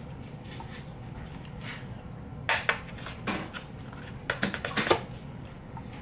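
Disposable wooden chopsticks clicking against a foam takeout tray while picking up sushi. There are a couple of separate clicks about halfway through, then a quick run of clicks just before the end.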